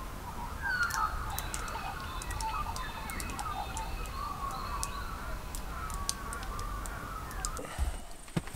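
Several birds chirping and warbling together in a busy, overlapping chorus, with thin whistled notes above it. A couple of short knocks come near the end.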